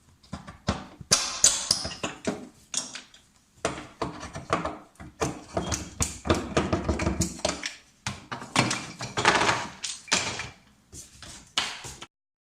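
Irregular knocks, taps and scraping from wooden parts and hardware being handled, with a few longer rubbing stretches; it cuts off abruptly near the end.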